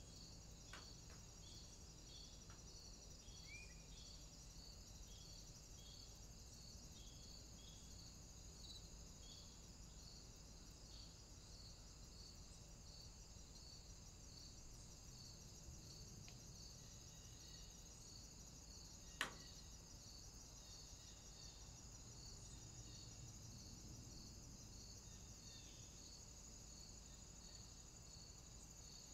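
Near silence with faint, evenly repeated cricket-like chirping over a steady high hiss, and a single sharp click about two-thirds of the way through.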